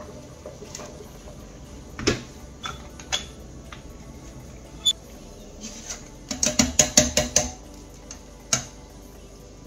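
A metal noodle press and a wire strainer knocking and clinking against a stainless steel pot and a glass cooktop. Several separate knocks are followed just past the middle by a quick run of about a dozen clicks, over quiet background music.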